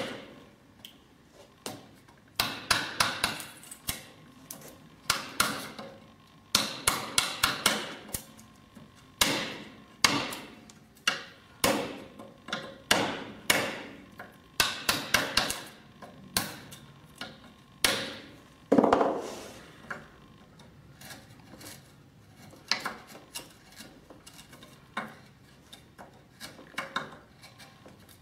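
Wood chisel being struck repeatedly to chop into old elm: quick runs of several sharp knocks every second or two, with one heavier blow past the middle and fainter knocks toward the end.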